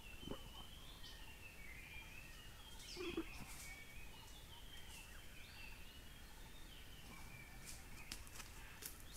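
Forest birds calling steadily in the background, with a few faint clicks and a soft thump about three seconds in.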